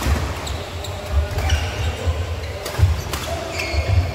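Badminton rally: several sharp racket strikes on the shuttlecock, mixed with heavy footfalls thudding on the court floor and a few short shoe squeaks.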